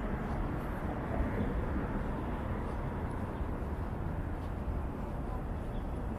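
Steady city street ambience: a low, even hum of traffic with no distinct events standing out.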